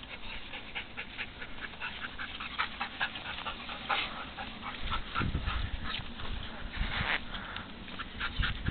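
Golden retriever whining and yipping excitedly in a rapid string of short, high squeaks. A few low thumps come about halfway through.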